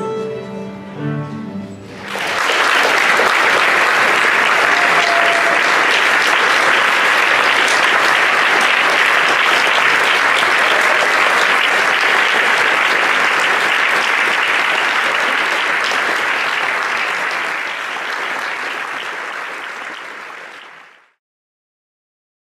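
Audience applauding steadily for about twenty seconds, tapering off near the end and then cutting off. The last two seconds of a piece of music end just as the clapping begins.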